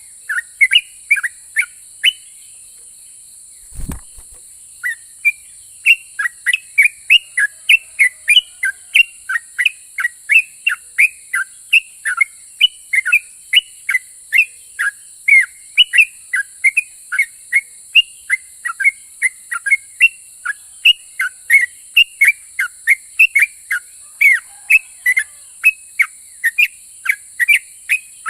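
Yellow-vented bulbul singing: a fast run of short, sharp whistled notes, about two to three a second. The song breaks off for a few seconds near the start, where there is one low thump, then runs on steadily. A steady high hiss lies underneath.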